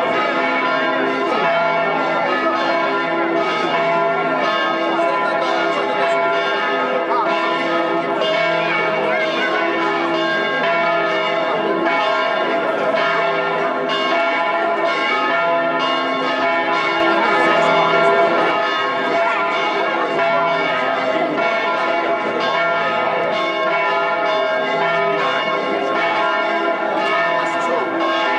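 Church bells ringing a continuous peal, strokes coming quickly one after another and ringing on over each other.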